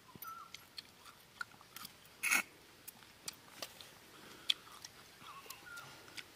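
A person chewing and sucking on a mouthful of crab in curry, with scattered small wet clicks and one louder burst of noise about two seconds in.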